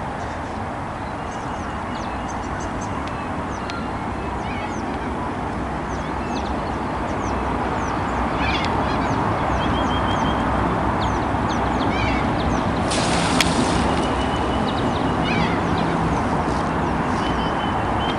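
Waterside bird calls: many short, high chirps and calls come again and again over a steady rushing background noise that grows louder about halfway through, with a brief loud hiss at about thirteen seconds.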